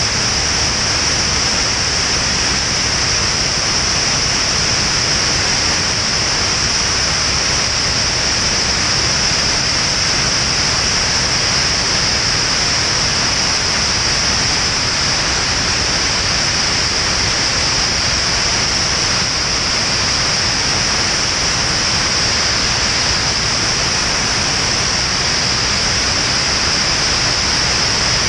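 Steady, loud rush of wind and engine-propeller noise from a Van's RV-10 light aircraft in flight, heard through a camera mounted outside under the wing, with a hissing edge and no change in pitch.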